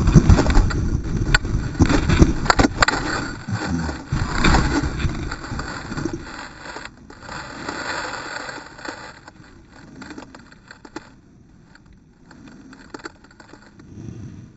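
Downhill mountain bike rattling and knocking over rocks, heard from a camera mounted on the rider, with many sharp knocks. After about six seconds it drops to quieter scraping and scattered clicks.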